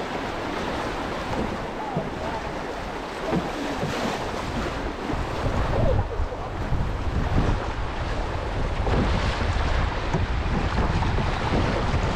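Rushing whitewater of a river rapid splashing around a moving canoe, with wind rumbling on the microphone, heavier in the second half.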